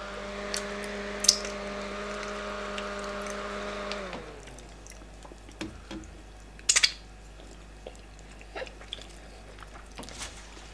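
Small handheld battery fan whirring with a steady hum, then switched off about four seconds in, its pitch falling as it spins down. After that come soft eating and chewing sounds with a few sharp clicks, the loudest a little past halfway.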